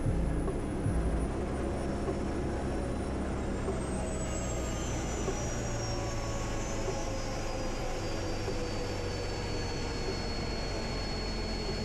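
Westland Scout helicopter's Rolls-Royce Nimbus turboshaft engine running with a steady low hum and a high whine. About three seconds in the whine starts falling in pitch, then settles on a steady lower note near the end.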